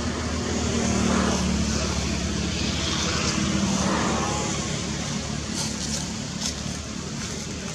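Steady low outdoor rumble and hiss that swells about a second in and again near four seconds.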